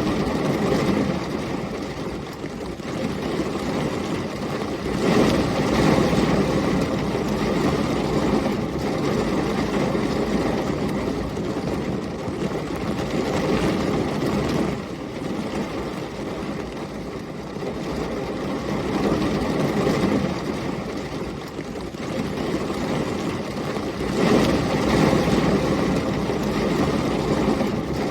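Heavy rain with storm wind, a steady dense hiss and low rumble that swells and eases in long waves several times, as gusts or rolling thunder.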